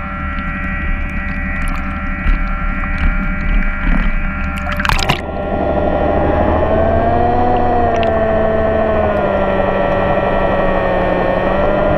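Boat motor running steadily, throttled back at first with scattered knocks, then a short loud rush of noise about five seconds in, after which the motor picks up again with a slightly wavering pitch.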